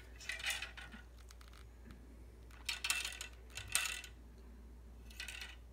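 A solid fiberglass bowfishing arrow rattling and clinking against the metal frame of a homemade full-containment roller arrow rest as the bow is tipped this way and that. The light metallic clatter comes in four short flurries.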